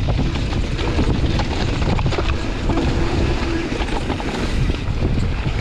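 Wind buffeting the microphone of a mountain bike descending a forest trail, with scattered rattles and knocks as the bike runs over rough ground. A faint steady whine sounds briefly about halfway through.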